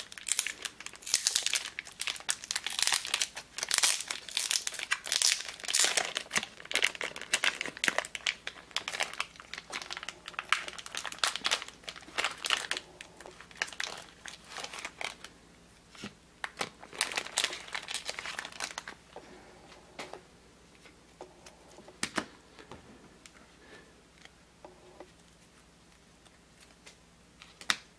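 Thin clear plastic bag crinkling and tearing as it is pulled open around a stack of trading cards. The rustling stops about two-thirds of the way through, leaving a few light clicks.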